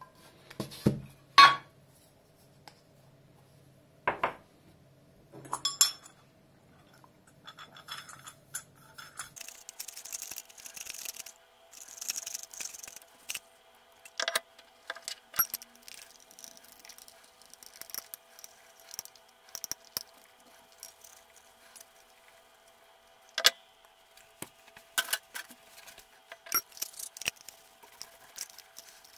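Small brass hand bell handled while being polished with a cloth: sharp metallic clinks of the bell and its clapper, loudest about a second and a half in, then many scattered light clinks with soft cloth rubbing between them.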